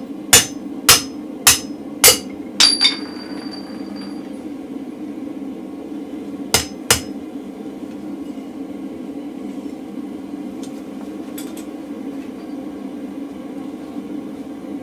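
Hand hammer striking a steel drift through a hole in a red-hot mild-steel bar on the anvil, drifting the punched hole out to size: about half a dozen blows, roughly two a second, the last one leaving a bright metallic ring. A few seconds later two more blows on the hot bar, then a few faint taps, over a steady low hum.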